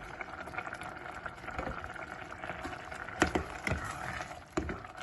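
Risotto simmering in a pan with freshly added stock, bubbling and crackling steadily, with a few short knocks a little after three seconds and again near the end.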